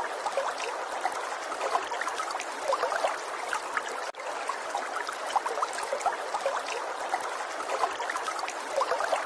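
Muddy floodwater rushing and churning past, a steady wash of water noise full of small splashes and gurgles.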